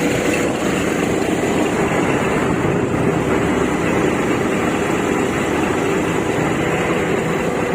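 Heavy machinery engine running steadily with an even hum.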